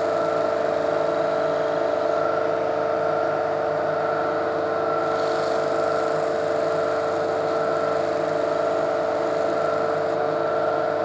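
Record Power DS300 disc sander motor running steadily, with a stone held against the spinning bare metal plate and grinding its face: a steady hum with a grinding hiss over it. The plate is dished inward and has runout, and the grinding is meant to true it flat.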